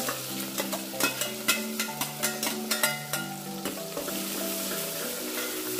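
Chopped onions sizzling in hot mustard oil in a stainless steel pressure cooker, stirred with a steel ladle that clicks and scrapes against the pot. The clicks come thick and fast for the first three seconds or so, then thin out as the frying hiss carries on.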